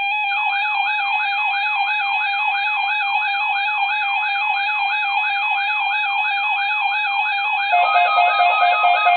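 Loud electronic siren-style alert tone, a wail sweeping rapidly up and down about two and a half times a second over a steady hum of higher tones. Near the end it switches to a pulsing beep at two pitches.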